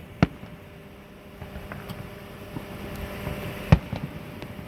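Fireworks exploding: two loud sharp bangs about three and a half seconds apart, the first just after the start and the second near the end, with a few fainter cracks between them, over a steady low hum.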